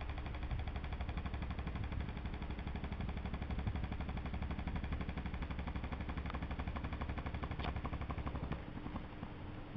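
Small clip-on electric fan running with an unbalanced blade, giving a rapid, even rattling pulse over a heavy low rumble as the head wobbles. The low rumble drops out near the end.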